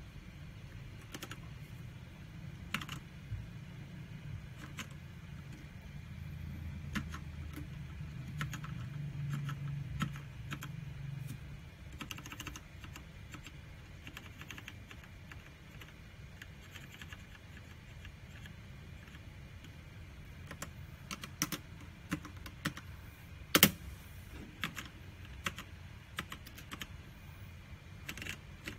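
Keys of a mechanical keyboard being pressed in a slow, irregular series of clicks, with one much louder key clack about two-thirds of the way through. A low hum sits under the typing for a few seconds early on.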